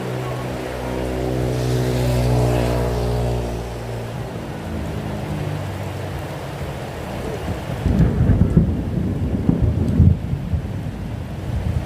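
Steady rain, with the hum of a passing vehicle's engine swelling and fading over the first four seconds. From about eight seconds in, a low rumble of thunder rolls.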